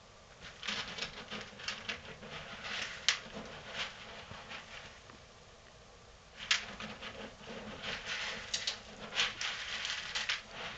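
Tamandua rooting through dog food in a plastic bucket: irregular clicks and rustles of the food pieces being shifted, with a lull of about two seconds in the middle.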